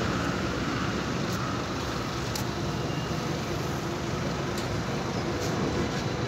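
Steady street traffic noise mixed with an articulated electric tram rolling slowly closer along the tracks, with a few faint ticks.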